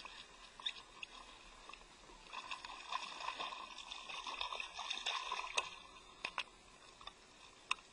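Fishing reel being cranked to bring a small fish in, a grainy whirring for about three seconds, then a few sharp clicks and taps near the end.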